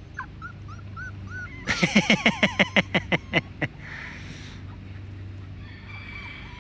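Chickens squawking in alarm while puppies chase them: faint short chirps, then about two seconds in a rapid run of about a dozen loud squawks, some six a second.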